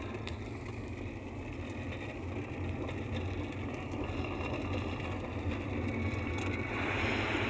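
Car driving on a wet road, heard from inside the cabin: a steady low engine and road hum with tyre noise, and a higher hiss that grows louder near the end.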